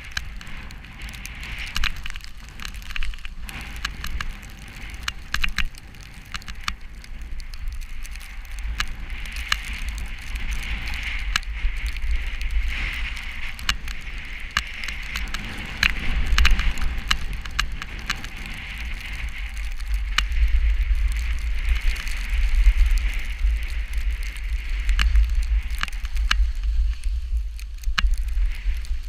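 Snowstorm wind buffeting the microphone, a deep rumble under a steady hiss, with many small crackling ticks scattered through.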